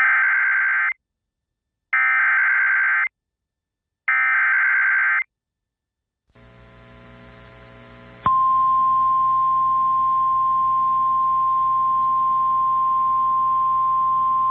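Emergency Alert System weather radio alert tones: three buzzy, warbling digital header bursts about a second each with gaps between, a short silence, a faint hum of the radio channel, then about 8 seconds in the single steady warning alarm tone starts and holds, signalling that a warning follows.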